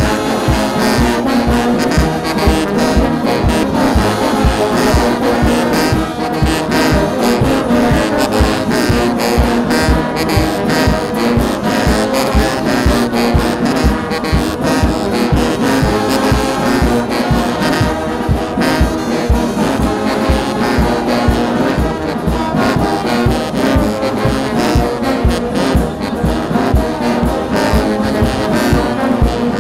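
Brass band music, with trombones and trumpets over a steady drum beat.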